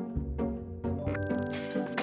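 Background music: short pitched notes at a steady pulse, with a hissing swell and a held tone coming in near the end.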